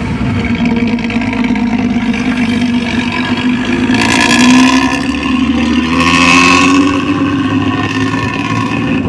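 Hino diesel bus engine running with its growling, snoring exhaust note (ngorok): a steady pitched drone that swells louder twice, about four and a half and six and a half seconds in.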